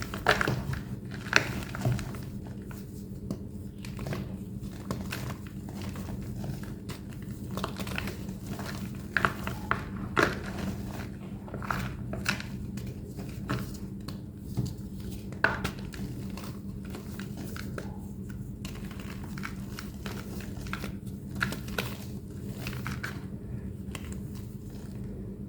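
A thick block of plain white gym chalk being crushed and crumbled by hand, giving irregular crunchy crackles and the squeaky sound of compressed chalk powder. A steady low hum runs underneath.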